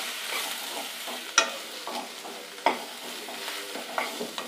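Broad beans, onion and masala powder sizzling in hot oil in a kadai as a steel ladle stirs and tosses them. The ladle knocks against the pan sharply three times.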